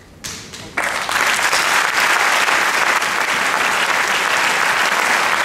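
Audience applauding, breaking out suddenly just under a second in and holding steady.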